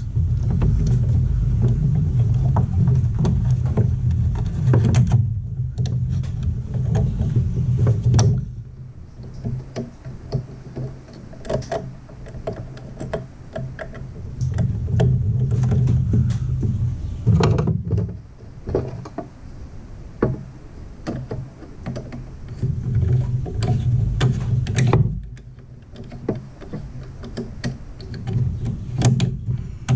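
Scattered small clicks and taps of wires and tools being worked inside a breaker panel, over a low rumble that comes and goes, cutting off about eight seconds in and again about twenty-five seconds in.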